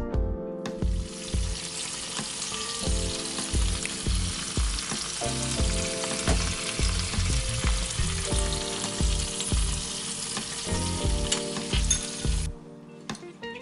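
Fat and juices sizzling around a roasting chicken in a glass baking dish in the hot oven, a steady crackling hiss that starts just under a second in and cuts off sharply near the end. Background music with a steady beat plays underneath.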